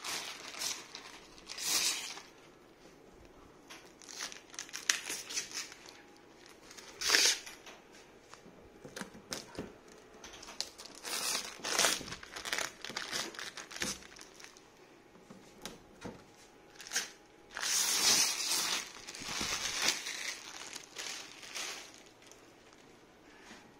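Clear plastic wrapping being pulled off a 3D printer and handled, in irregular crinkling rustles with some tearing, the strongest a short burst about a third of the way in and a longer stretch of rustling past the middle.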